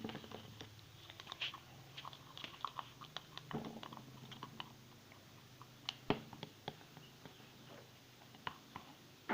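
Stirring a thickening glue slime with a stirring stick: irregular sticky clicks and small squelches as the mixture sets.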